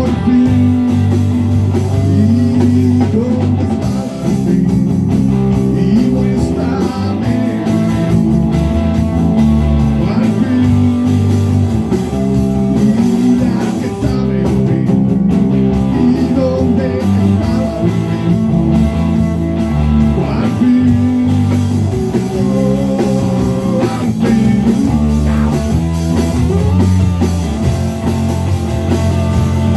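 A band playing a song, with guitar prominent over a steady bass line and a moving melody.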